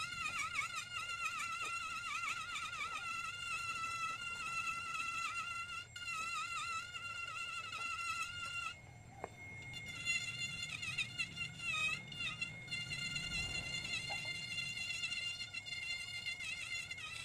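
High-pitched whine of a handheld electric rotary carving tool grinding ngọc am wood, its pitch wavering as the bit bites and eases. The whine dips briefly about nine seconds in, then resumes.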